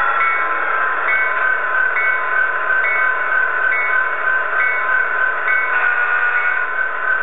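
Sound decoder in an HO-scale Amtrak F59PHi model playing its simulated EMD 710 twelve-cylinder turbo diesel through a small speaker while the locomotive stands still. It makes a steady, thin engine drone with a short high tone repeating about once a second, and more tones join about six seconds in.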